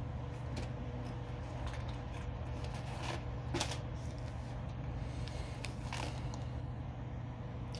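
Plastic lure packaging being handled: crinkling and rustling of a soft-plastic bait bag and card packaging, with a few louder crackles about three and a half and six seconds in, over a steady low background hum.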